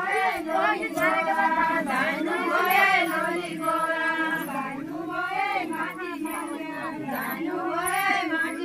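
A group of women singing a deuda folk song together in chorus, a continuous, many-voiced melodic chant.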